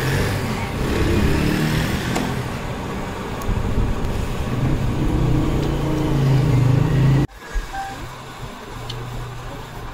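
A motor running, with a pitch that drifts up and down. It cuts off abruptly about seven seconds in, and a quieter hum follows.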